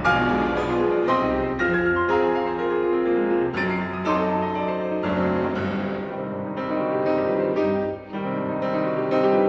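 Background music: piano playing a slow, steady run of notes, some chords held.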